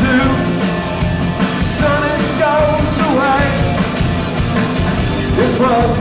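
Live rock band playing: two electric guitars over a drum kit, with a male voice singing a wavering melody line.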